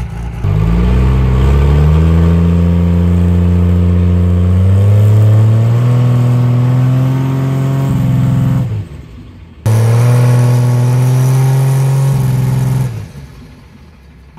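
Cummins diesel drag truck engine under full throttle on a launch, its note climbing steadily for several seconds. It cuts off sharply about eight and a half seconds in, comes back suddenly a second later at a steady pitch, then fades away near the end.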